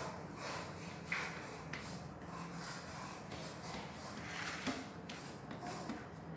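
Hands pressing and smoothing a layer of besan barfi mixture in a steel plate: soft rubbing and patting, with a few light taps, the sharpest about a second in and again near five seconds.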